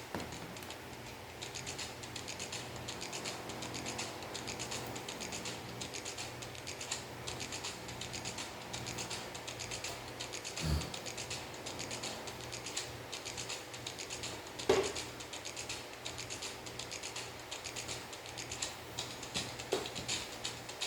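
A long run of small, rapid clicks and ticks over a faint low steady hum, with a couple of louder knocks near the middle.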